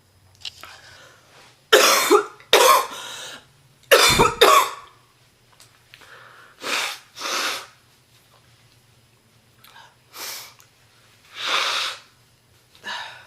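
A heavy smoker's deep, chesty cough, a woman who is ill: a loud fit of several coughs in quick succession in the first few seconds, then single coughs spaced a second or more apart.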